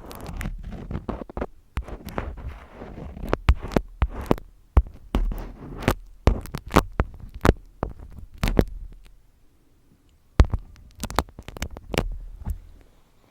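Close-miked ASMR handling sounds: irregular sharp taps and clicks mixed with brushing rustles over a low rumble. They pause briefly about ten seconds in, then resume.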